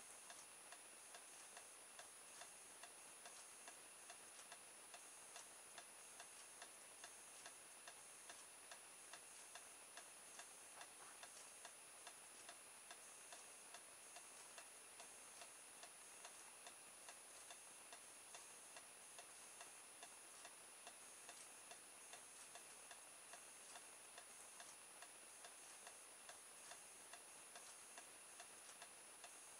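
Faint, regular ticking at roughly two ticks a second over a low hiss.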